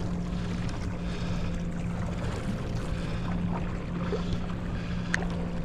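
Steady low hum of a boat's engine running at idle, over a haze of wind and water noise, with a single sharp click about five seconds in.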